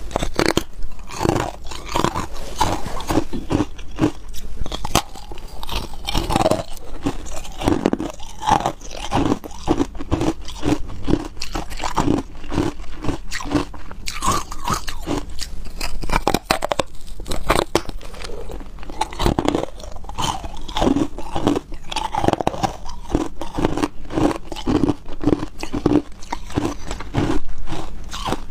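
A person biting into and chewing pieces of hard white ice, a long run of crisp crunches in quick succession.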